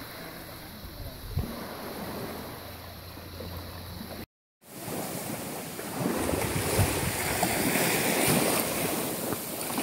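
Small waves lapping on a sandy beach, with wind buffeting the microphone. The sound cuts out for a moment a little over four seconds in, then comes back louder and hissier.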